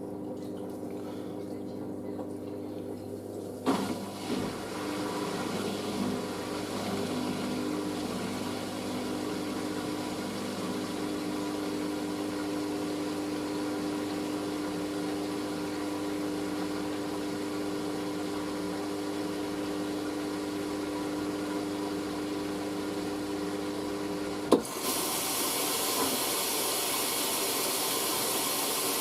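Hoover SIX AAA160 washing machine drain pump running with a steady hum and gurgling water as the drum empties. About 25 seconds in it cuts off with a click and a steady hiss of water filling for the rinse begins.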